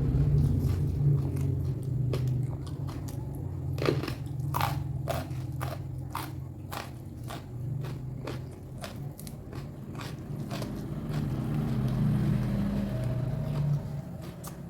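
A person chewing and crunching food, with many crisp crunches and mouth clicks. A steady low hum runs underneath.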